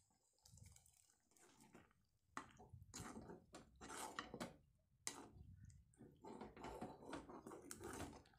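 Thick egg curry gravy being stirred in a metal kadai: faint, wet sloshing and scraping strokes in an irregular run, starting about two seconds in.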